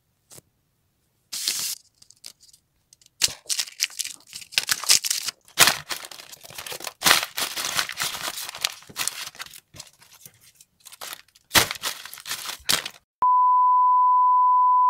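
Hands crumpling and crushing paper bags: irregular bursts of crackling, rustling paper. Near the end, a steady high-pitched beep tone takes over.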